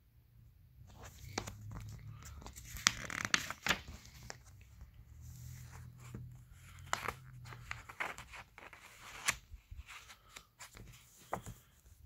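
Glossy paper catalog pages being turned and handled: irregular rustling and crinkling with sharp page snaps, starting about a second in.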